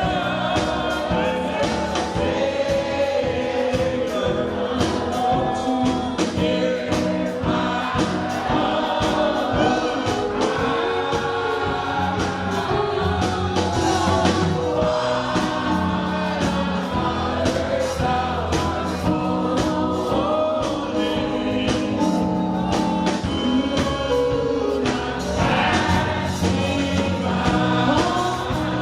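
Gospel music: a choir singing over a band with a steady drum beat.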